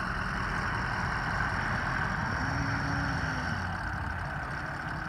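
2003 Ford F-550 bucket truck's diesel engine running steadily while the Versalift boom is being operated. A faint hum rises and falls in pitch in the middle.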